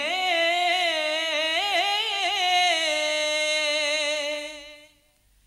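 A man singing a naat, drawing out the last syllable of a line as one long, wavering, ornamented note that fades out about four and a half seconds in.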